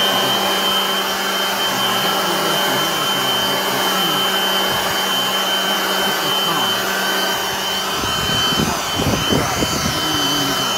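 Ryobi One+ 18V hybrid leaf blower running on battery power: a steady rush of air with a high fan whine and a low motor hum. The rush turns gustier near the end.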